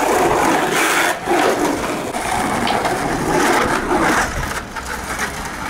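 Skateboard wheels rolling over rough concrete, a continuous gritty rumble broken by a few sharp clacks of the board.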